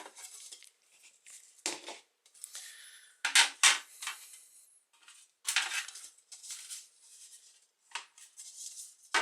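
A boilie rolling board and tools being handled on a worktop: a series of separate short knocks and clatters of hard items, the loudest about three and a half seconds in and again about six seconds in.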